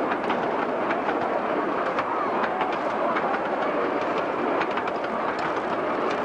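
Loaded miniature-railway passenger cars rolling past, their steel wheels clattering and clicking on the track over a steady rumble.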